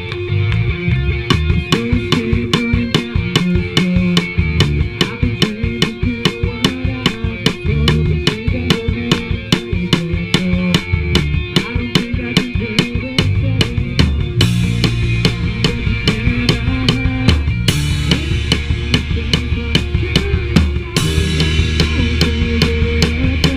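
A live rock band jamming: a drum kit plays a fast, steady beat of kick and snare hits over a low bass line. Cymbals come in about halfway through. The band is heard close and rough through a chest-mounted GoPro's own microphone.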